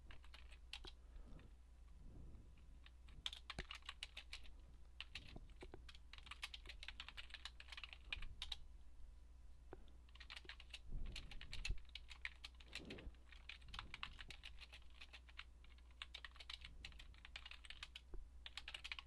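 Typing on a computer keyboard: faint key clicks in quick bursts of a few seconds, with short pauses between them, over a steady low hum.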